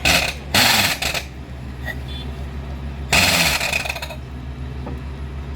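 Borewell drilling rig running with a steady low hum, broken by loud bursts of noise about a second long near the start and again in the middle.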